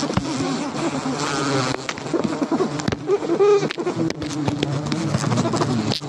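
A large colony of giant honey bees buzzing loudly, a dense, wavering hum of many wings, with scattered clicks.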